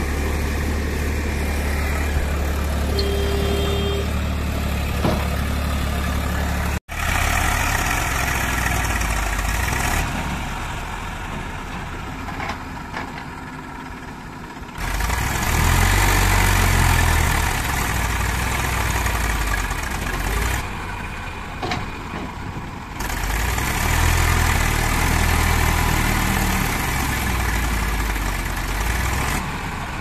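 Diesel engines: a JCB 3DX backhoe loader running steadily, then, after a cut about 7 s in, an Eicher 380 tractor's engine revving up loudly twice under load with its loaded trolley.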